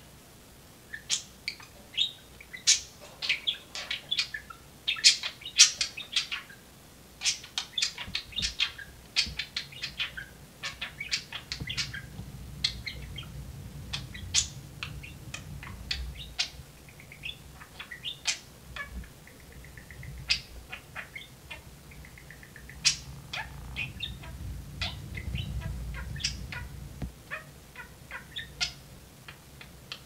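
Budgerigars chattering: a steady stream of rapid short chirps and warbling squeaks, with a faint low rumble underneath through the middle.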